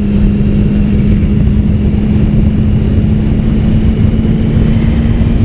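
Triumph Sprint ST 1050's three-cylinder engine running at a steady cruise, heard from on board the moving bike: one steady held engine note over a dense rush of wind and road noise.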